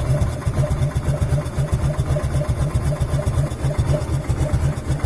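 Harley-Davidson V-twin engine idling with a loping, uneven 'potato-potato' beat, fired by a Morelli magneto. It is not yet fully warmed up and chugs roughly.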